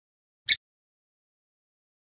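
A male brown-chested jungle flycatcher giving a single short, sharp call note about half a second in.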